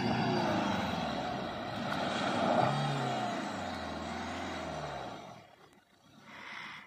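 Maruti Suzuki Swift hatchback spinning on loose dirt: the engine revs, its note rising and falling, over tyres scrabbling and spraying grit. The sound drops away about five seconds in as the car eases off.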